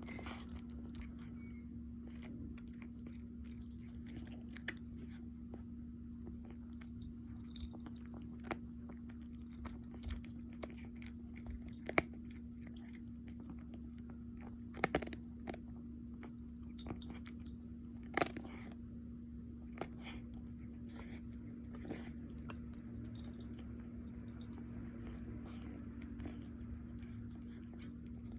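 An animal chewing and crunching dry food close to the microphone, in scattered sharp cracks, over a steady low hum.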